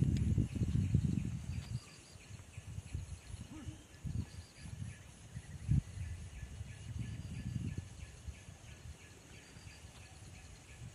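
Wind buffeting the microphone in uneven gusts, strongest in the first two seconds, over a faint, steady, pulsing chirr of insects.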